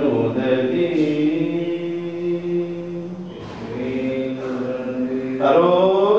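A Hindu devotional chant: a voice singing in long, held notes that glide slowly in pitch, a little quieter around the middle and louder again near the end.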